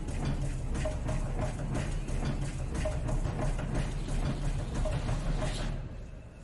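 Documentary soundtrack music: a low rumbling drone with regularly repeating percussive hits, dropping away about six seconds in.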